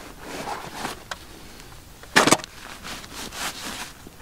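Rustling and handling noises at a backpack as gear is pulled out, with a sharp double knock about two seconds in, the loudest sound.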